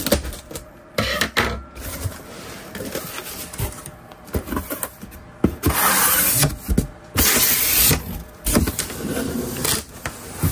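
Cardboard shipping box being opened by hand: flaps and cardboard inserts scraping, rustling and knocking. The loudest parts are two longer scraping rustles about six and seven and a half seconds in.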